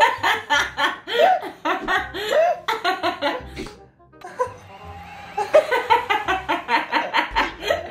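Women laughing hard in quick repeated bursts, in two long runs with a short pause between, over background music.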